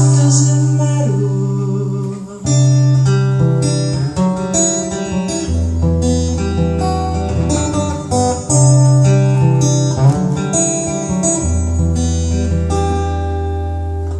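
Acoustic guitar strummed in a slow chord progression, the chords changing every second or two.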